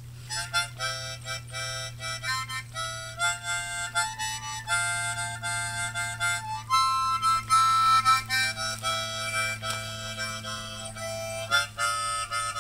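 Harmonica music: a tune of short notes changing quickly, over a steady low drone.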